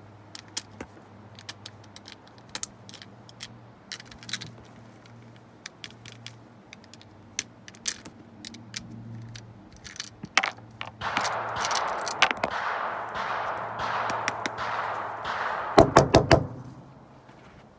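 Small metal clicks and taps as .22 LR cartridges are pushed one by one out of a Tec-22 magazine whose spring is stuck in the down position. A longer scraping rattle comes in the second half, then a few loud sharp clacks near the end.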